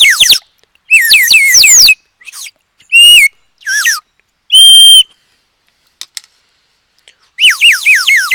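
Water bird-call whistle blown in loud short bursts of warbling, quickly falling chirps, with one steady held whistle about five seconds in. A longer warbling run starts near the end.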